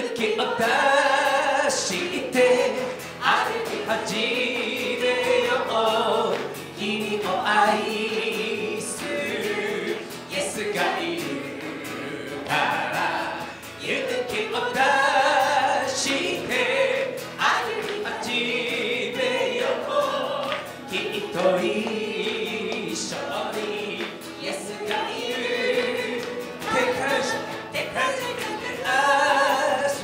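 A worship song sung over acoustic guitar, with a woman's voice leading the singing.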